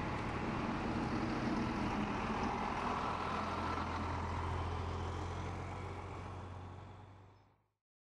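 Ambulance engine running as it drives away, a steady low hum that fades out near the end.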